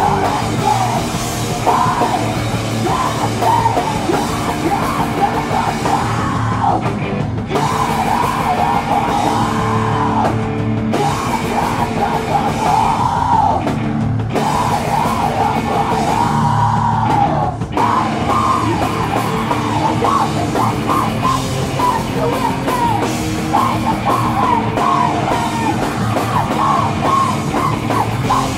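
A loud rock band playing live: distorted electric guitars and a drum kit, with a shouted vocal. The band cuts out for an instant several times.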